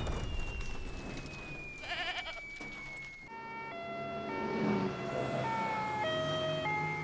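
The rumble of an explosion dies away under a high ringing tone that slowly falls in pitch. About three seconds in, two-tone emergency sirens of an ambulance and police motorcycles start, each switching back and forth between two pitches, with motorcycle engines passing underneath near the end.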